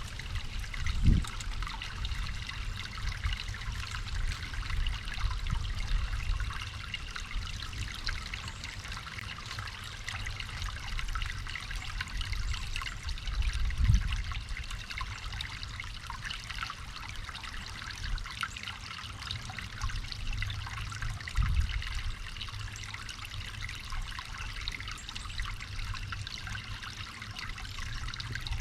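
Water trickling steadily, like a small stream, over a low rumble. There are three dull thumps: one near the start, one about halfway and one about three quarters through.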